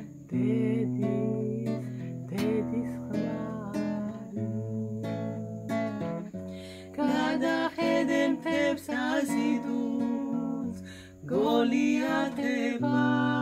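A woman singing a Georgian song over acoustic guitar strumming, holding long notes with vibrato.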